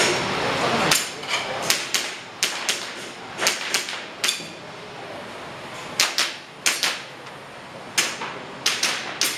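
Airsoft pistol shots fired singly and in quick pairs at an irregular pace during an IPSC practical shooting course: about fifteen sharp cracks, with pauses between strings.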